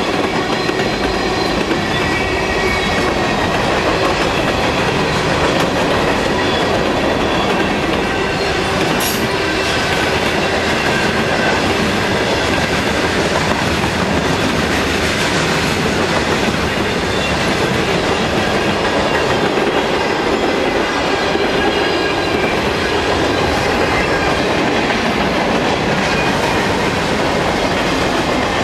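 Freight cars (tank cars, gondolas and boxcars) rolling steadily past: a loud, constant rumble of steel wheels on rail with clickety-clack from the trucks and a faint high squeal from the wheels. A single sharp clank sounds about nine seconds in.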